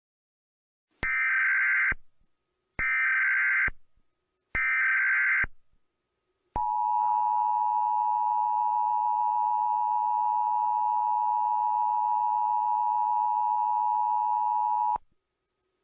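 Emergency Alert System test signal: three short screeching bursts of the digital SAME header, then the steady two-tone EAS attention signal held for about eight seconds before it cuts off.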